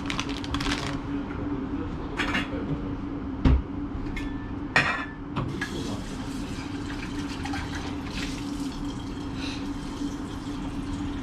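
A metal pot and its lid knock twice against a stainless-steel kitchen counter, then a kitchen tap runs, filling the pot with water. A steady low hum lies underneath.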